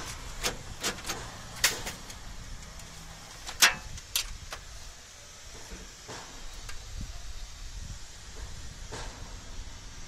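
Sharp metallic taps and clicks of a screwdriver working against the sheet metal of a car's inner door panel, about seven in the first four and a half seconds, the loudest near the start of the second half of that run. Fainter clicks follow as the work shifts to handling wires, over a steady low rumble.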